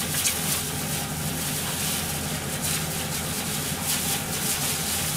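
Plastic bag crinkling in irregular rustles as a head of cabbage is handled and pulled out of it, over a steady mechanical hum.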